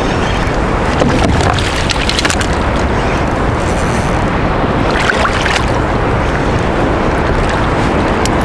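Strong wind buffeting the microphone over choppy sea sloshing around a kayak, with a couple of brief louder splashes about a second in and again about five seconds in.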